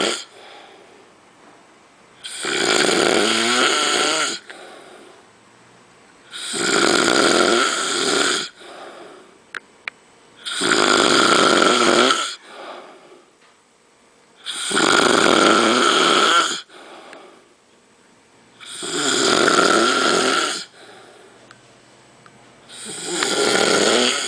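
A sleeping man snoring loudly: six long, rasping snores, each about two seconds long and coming about every four seconds, with quiet breathing between them.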